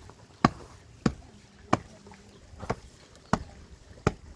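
A series of sharp strikes, six in a row at a steady working pace, roughly one blow every second or a little less.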